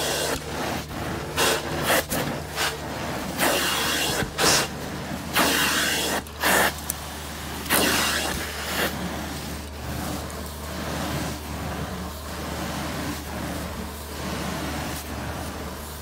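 Carpet extraction wand working wet carpet under strong vacuum suction: a steady low machine drone with rushing, hissing surges as the wand is stroked across the pile, frequent and uneven during the first half, then a steadier rush.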